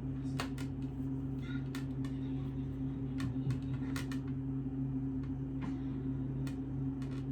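Steady low electrical hum, with scattered light clicks and taps of small tools being handled during acrylic nail application.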